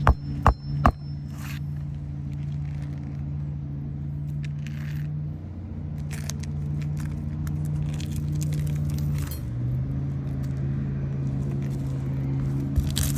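A steady engine hum, its pitch dropping slightly about nine seconds in, with three sharp knocks in the first second and light scraping and clinking of tools.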